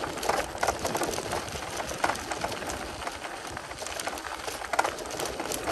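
Folding e-bike rolling over a gravel path: the tyres crunch on loose stones and the bike rattles, giving a steady noise with irregular clicks.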